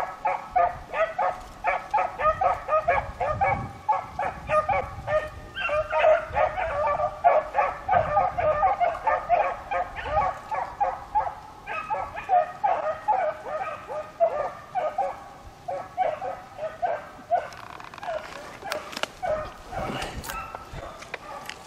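A small pack of beagles baying on a rabbit's scent trail: a rapid, unbroken run of short, overlapping yelping notes from several hounds, which dies away about three-quarters of the way through.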